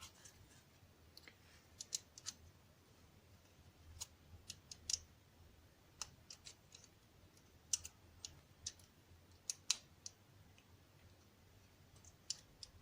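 Faint, irregular small metallic clicks and taps of an American 1100 padlock's small parts and tools being handled during disassembly.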